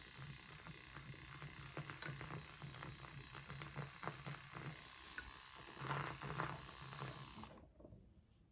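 Zulay MilkBoss battery-powered handheld milk frother whirring with a low buzz as its whisk spins in milk, frothing it with a swishing hiss. It cuts off suddenly near the end.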